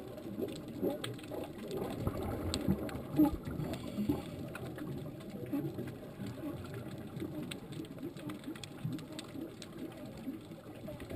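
Underwater ambience picked up by a diving camera: an uneven low rumble and gurgle with scattered sharp clicks and crackles.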